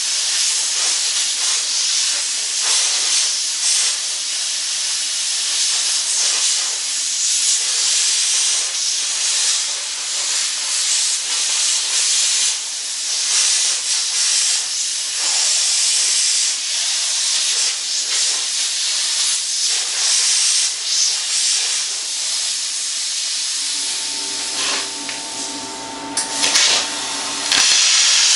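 Plasma cutter torch running steadily as it cuts through a 22-inch chain sprocket: a loud, uneven hiss of the air-plasma jet. Near the end the hiss drops for a few seconds while a lower hum with steady tones comes in, then the hiss resumes.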